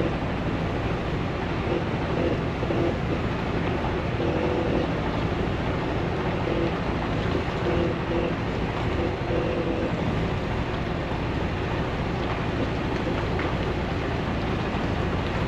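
Semi-truck under way: a steady engine and road-noise drone, mostly low in pitch, with faint wavering tones in the middle.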